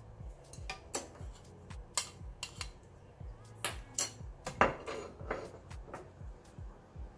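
Clatter of plastic kitchenware: a board and a plastic mixing bowl knocking and clicking as chopped boiled eggs are tipped into the bowl. Scattered sharp knocks, the loudest a little past halfway.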